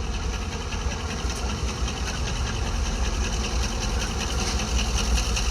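Diesel locomotive engine idling: a steady low rumble with a fast, even mechanical beat above it.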